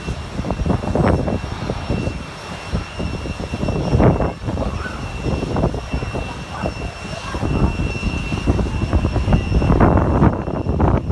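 Jet aircraft engine noise: a rumble that swells and fades, with a steady high whine running through it.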